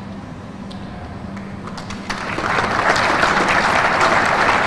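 Audience applause breaking out about two seconds in and quickly building to a steady level. Before it there is only a low steady hum.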